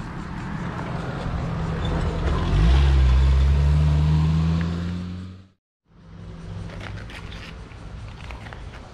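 Motorcycle engine running. It gets louder and rises in pitch as it revs, from about two and a half seconds in, then cuts off suddenly a little past halfway. A quieter engine hum follows, with a few light clicks.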